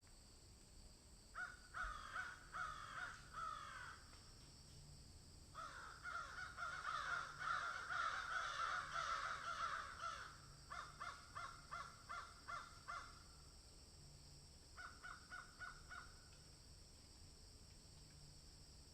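Birds calling in bouts of rapid, harsh, repeated calls: a short series, a long dense run in the middle, then two more short series, over a steady high hiss.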